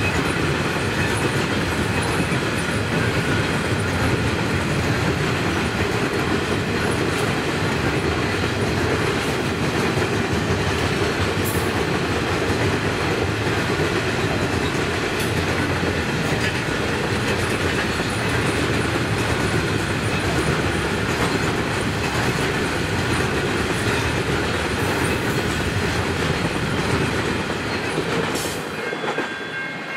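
Loaded coal hopper wagons of a freight train rolling steadily past over a level crossing, a continuous loud rolling noise. It drops off near the end as the last wagons clear the crossing.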